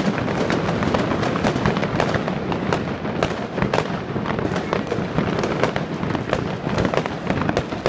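Many fireworks going off at once: a dense, unbroken crackle of bangs and pops, with aerial shells bursting among them.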